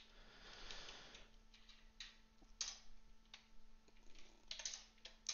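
Faint, scattered keystrokes on a computer keyboard, a handful of separate clicks as a short number is typed in.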